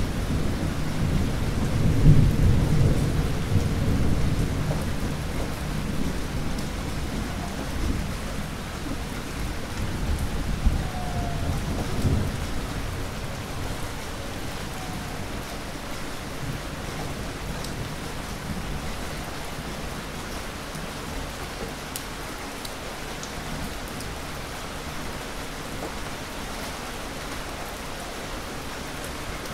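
Heavy rain falling steadily, with rolling thunder rumbling through the first half. The thunder is loudest about two seconds in and dies away after about twelve seconds, leaving steady rain.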